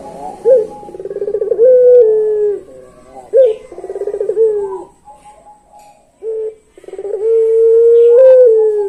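Caged puter pelung collared dove cooing. Each call is a short note, a rapid rolling trill, then a drawn-out coo, and there are two such calls. Near the end comes a short note and then a long held coo of about two seconds.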